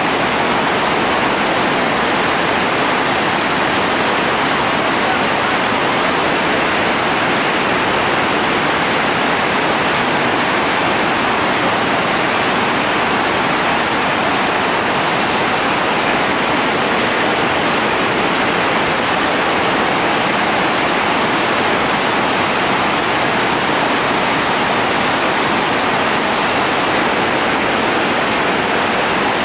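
Whitewater rapids: a loud, steady rush of churning water pouring over rock ledges.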